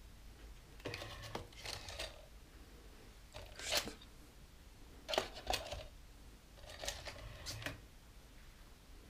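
Plastic clicking and rattling as a MiniDisc cartridge and the Aiwa ADN-1 MiniDisc/CD unit are handled, in four short bursts with quiet gaps between them.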